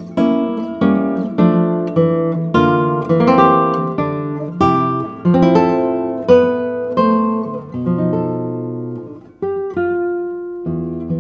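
Background music: an acoustic guitar picks a slow melody, one note about every half second, each note ringing and then fading.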